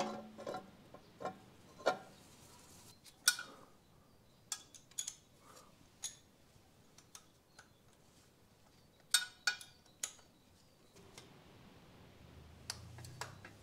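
Faint, scattered metallic clicks and clinks of a ratchet and socket and copper exhaust nuts being run onto the catalytic converter's flange studs at the exhaust manifold, with a few quick clicks together past the middle. A faint low hum comes in near the end.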